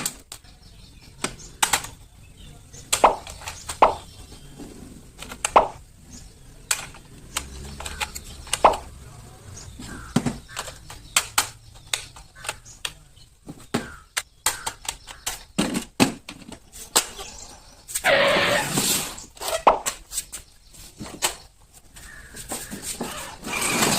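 Toy RC car's plastic parts knocking and clicking in irregular sharp knocks, with a denser burst of rattling about 18 seconds in.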